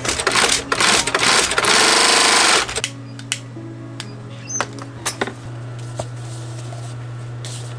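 Post-bed leather sewing machine stitching a leather boot upper in short stop-start runs, then one fast continuous run of about a second, stopping about three seconds in. A few light clicks follow.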